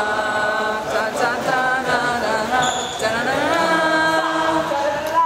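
Several voices singing at once, holding long notes and sliding between them like a choir or chant, in music played for the dancers.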